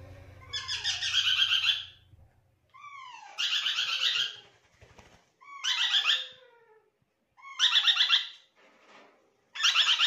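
A small parrot calls five times, about once every two seconds. Each call is a short downward note followed by a rapid, harsh chattering trill.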